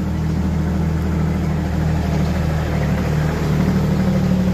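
Engine of a small tourist road train running as it comes closer, a steady low hum that slowly grows louder.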